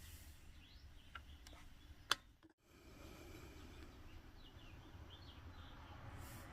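Faint background: a steady low hum with distant birds chirping now and then, and one sharp click about two seconds in.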